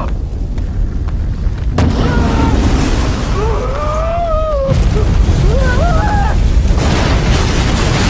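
Film sound effects of vehicle explosions: a constant deep rumble, a sudden blast about two seconds in, and a fuller, louder blast building near the end. Over the middle there are wavering high cries.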